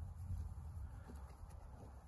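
Low, uneven wind rumble on the microphone, with a few faint soft crunches from a horse chewing hay.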